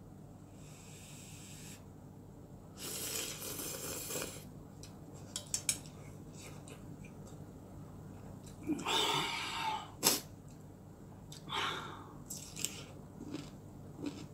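Mouth sounds of eating instant ramen noodles and crunchy chonggak radish kimchi: slurps and chewing in several short noisy bursts, with small clicks and a sharp crunch about ten seconds in.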